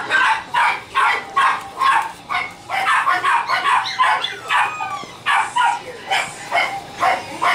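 A puppy yapping over and over, short high-pitched barks about two to three a second.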